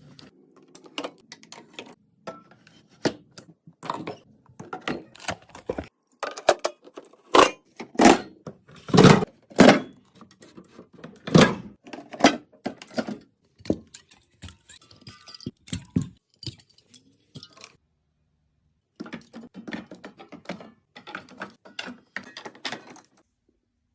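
Restocking sounds: drinks and snack containers being set down and stacked in a mini fridge, a long irregular series of sharp clacks and knocks with small clinks between them.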